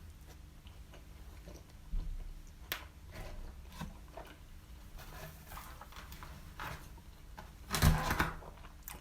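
Close-up eating sounds of doner kebab meat and chips being chewed: scattered soft clicks and smacks, with a brief louder burst of noise near the end.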